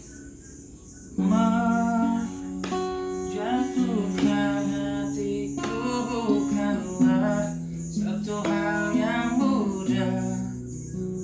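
Acoustic guitar being played, louder from about a second in, with a man singing over it.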